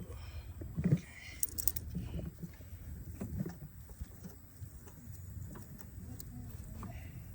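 Light knocks and clicks of hand work on a battery cable and its terminal end, the sharpest about a second in, over a steady low rumble.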